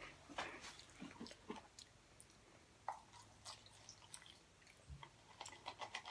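Near silence with faint chewing of crunchy spicy snack chips: sparse soft crunches, then a quick run of small clicks near the end.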